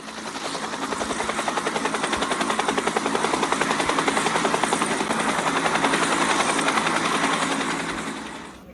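Helicopter rotor chopping in rapid, even beats. It swells in over the first seconds and fades away near the end, as the helicopter passes by.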